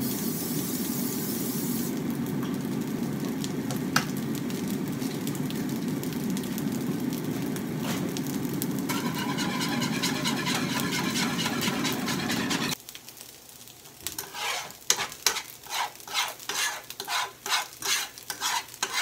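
An aerosol can of cooking spray hisses into a frying pan for about two seconds over the steady sizzle of food cooking in the pans. About two-thirds through, the sizzle cuts off abruptly. A fork beating egg in a frying pan then clicks against the metal about three times a second.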